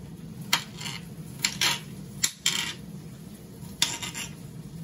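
A kitchen knife slicing a red onion and striking a glass cutting board, giving about six sharp clicks at uneven intervals.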